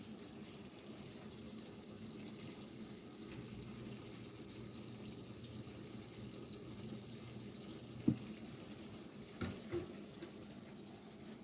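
Cooking oil poured from a plastic bottle into an enamelled cast-iron skillet, a faint steady pour. A sharp knock about eight seconds in and two lighter knocks a little later.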